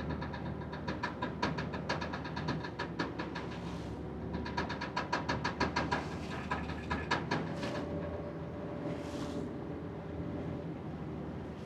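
Vaporetto engine running steadily with a low drone, over a rapid, regular metallic clicking and rattling that comes and goes. About two-thirds of the way through, a steadier higher hum takes over.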